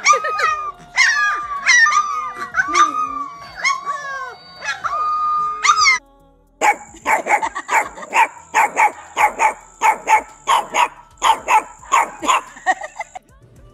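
A litter of young puppies howling together in wavering cries that rise and fall in pitch. After a brief pause about six seconds in, a single puppy barks in quick high yips, two to three a second, with a thin steady high tone behind.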